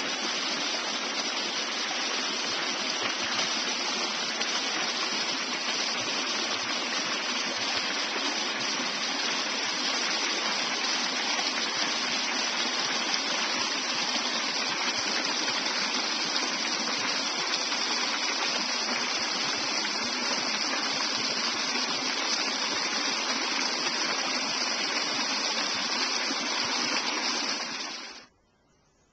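Small creek cascading over rocks: a steady rush of water, which cuts off abruptly near the end.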